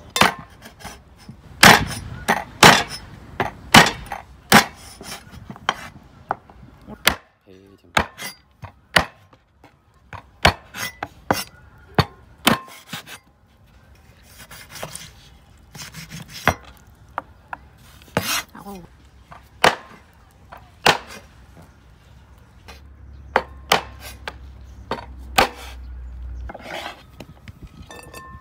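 Cleaver chopping the claw tips off raw chicken feet on a wooden cutting board: a long run of sharp, irregularly spaced knocks.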